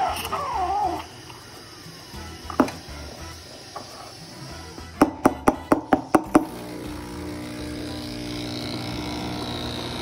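One sharp knock, then around the middle a quick run of about seven sharp knocks, roughly five a second, followed by a steady hum.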